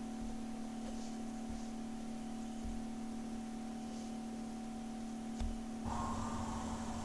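Steady electrical mains hum with a faint click about five seconds in; shortly after, a faint hiss joins as the film's soundtrack starts playing.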